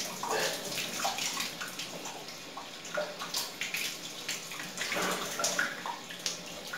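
Water running and splashing into a bathtub, with irregular gurgles, as a steel panel radiator is flushed out with tap water. The flushing clears the black sludge clogging the radiator, which keeps it from heating.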